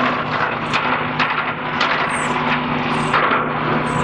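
Demolition site noise: a steady engine hum under irregular knocks and clatter, with a few short high squeaks.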